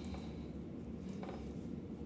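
Quiet room tone: a steady low hum with a faint brief sound about a second in.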